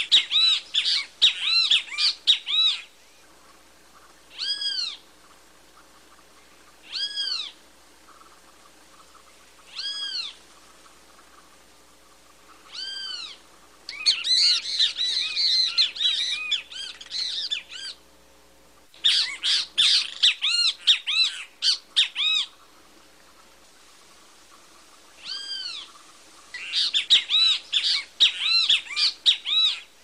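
Great kiskadee (bem-te-vi) calling: single arching calls a few seconds apart, broken four times by bursts of rapid, overlapping calls.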